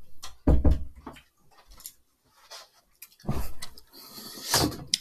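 A room door being shut with a heavy thud about half a second in. Then knocks and rustling near the end as someone sits back down in a desk chair.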